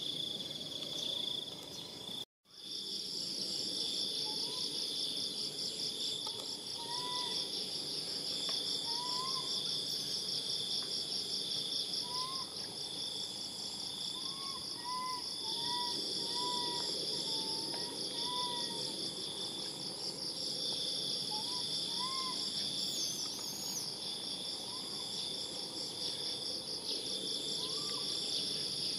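Steady high-pitched insect chorus buzzing without a break. It cuts out completely for a moment about two seconds in. From about six seconds in, short soft rising-and-falling calls from a small animal or bird come every second or two.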